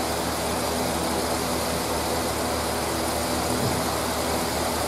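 Large electric fan running steadily, a continuous rush of air with a low hum under it.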